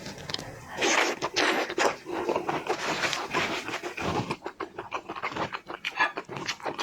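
Close-miked eating: crunchy food being bitten and chewed, with a dense run of crackling and scraping clicks.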